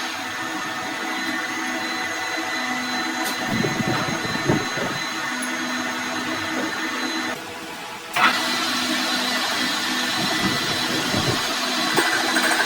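A workshop machine's motor running steadily with a constant whine. The sound drops away for about a second a little past the middle and comes back with a sharp click.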